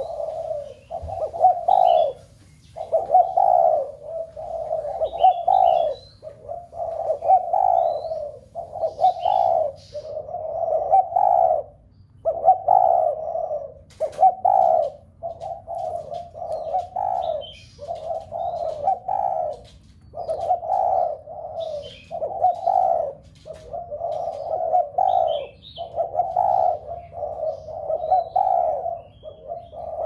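Spotted doves cooing, one coo phrase after another with hardly a break, with faint high chirps from small birds above them.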